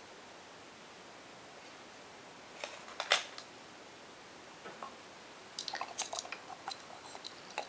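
Sharp clicks and taps of a small framed insect specimen box being handled, the loudest about three seconds in. Then comes a flurry of light clicks and crinkles as a paper tissue is rubbed over the frame to dust it.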